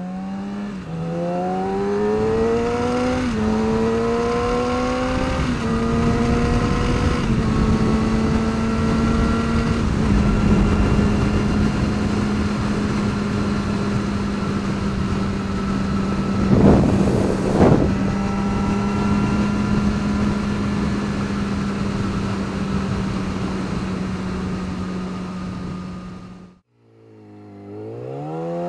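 2009 Yamaha R6 inline-four engine being revved up in several small steps over the first ten seconds, then held at a steady high RPM, with a short noisy rush partway through. It cuts out abruptly near the end and then starts climbing again. This is the 7–8k RPM range where the bike made a strange ticking or knocking noise, later traced to a loose washer between the crash cage and the engine mounts.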